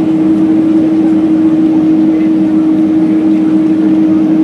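Cabin noise of a Boeing 767-300ER taxiing: the engines at taxi power with a steady drone over the rush of cabin air, and one constant humming tone running through it.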